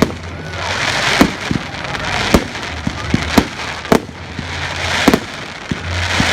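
Fireworks display: sharp bangs about once a second, with crackle and hiss swelling and fading between them.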